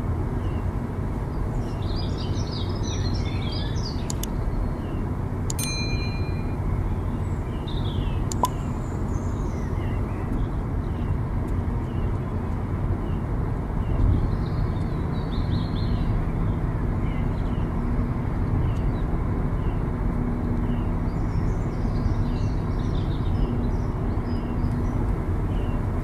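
Steady road and engine noise of a car driving at speed on a highway, heard from inside the cabin, with birds chirping several times over it.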